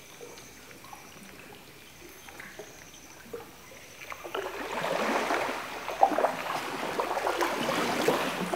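Water splashing and trickling around a canoe, faint at first and louder from about four seconds in.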